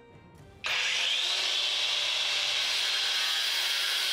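A power tool starts abruptly just under a second in and then runs steadily at an even level.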